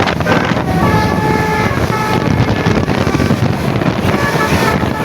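Bus-mounted basuri-type 'telolet' air horn playing a melody of short notes at changing pitches over a loud, steady background noise.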